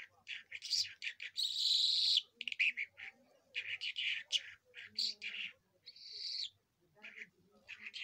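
Caged lark singing: a fast run of varied chirps, buzzy notes and short trills, with a brief break near the end.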